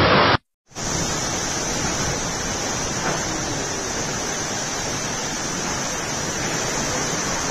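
Rainstorm with strong wind: a steady, even roar of heavy rain and wind that starts after a short gap just under a second in.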